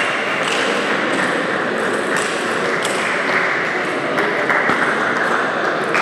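Table tennis balls clicking sharply off bats and table at irregular intervals, over a steady background hubbub of a busy hall.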